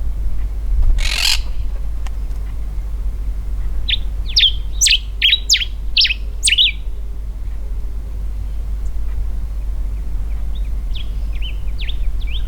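Common diuca finch singing: a phrase of about eight quick, sweeping whistled notes about four seconds in, then a fainter phrase near the end. A short burst of noise about a second in, and a steady low rumble underneath.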